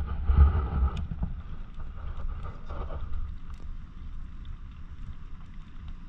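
Wind buffeting the microphone in a low, uneven rumble, over the wash of the sea.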